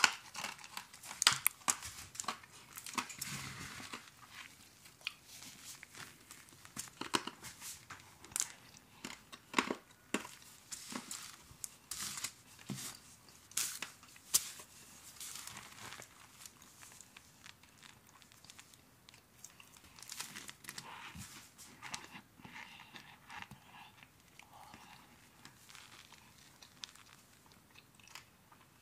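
Dry, crinkly crackling as cornstarch is shaken out over ice, most likely from its package. The crackles are irregular and sharp, dense for about the first fifteen seconds, then sparser and fainter.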